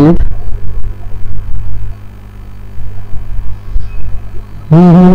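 A steady low electrical hum with an irregular low rumble, then about four and a half seconds in a man starts humming a long, wavering note.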